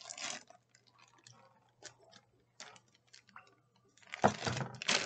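Scattered light clicks and taps from rubber stamps and their bag being handled, then louder rustling and crinkling starting about four seconds in.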